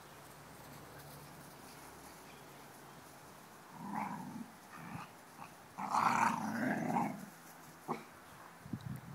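Mother dog and puppies growling in rough play: quiet at first, then short growling bursts from about four seconds in, the longest and loudest lasting about a second.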